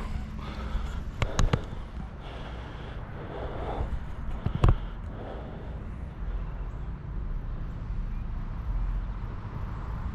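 Wind rumbling on the microphone outdoors, with a few sharp knocks; the loudest comes about halfway through.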